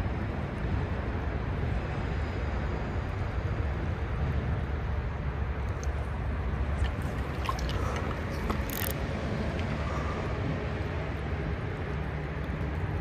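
Steady rush of a shallow stream's current, mixed with a low rumble of road traffic. A few brief clicks come about halfway through.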